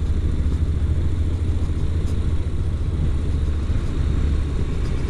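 Honda NC700X's parallel-twin engine running steadily at low village speed, a constant low rumble mixed with road and wind noise on the rider's camera microphone.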